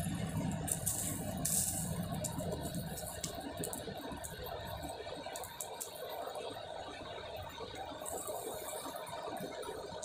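Charcoal forge under an electric air blower: a steady blast of air with the coals crackling and popping, while a machete blade heats in the fire for hardening. The blower's low hum eases off about three seconds in.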